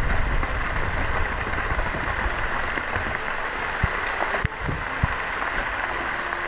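Steady rushing outdoor noise, like wind on the microphone, with a few soft low thumps around the middle.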